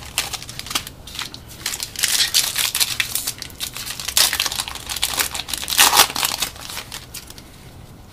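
Wrapper of a 2013 Topps Series 1 baseball card pack crinkling and tearing as it is opened by hand, in a run of irregular rustles and rips, loudest about two seconds in and again near six seconds.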